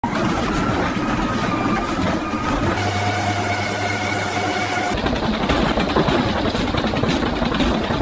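Washing machine motor running steadily: a loud mechanical rumble with a low hum and a high whine, changing abruptly about five seconds in.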